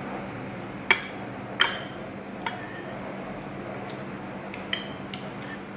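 Metal spoon clinking against a plate while scooping rice: a handful of sharp, ringing clinks, the loudest about a second in.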